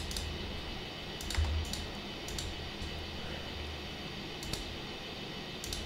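Scattered computer mouse clicks and keyboard taps, about eight sharp clicks spread unevenly, over a steady low hum.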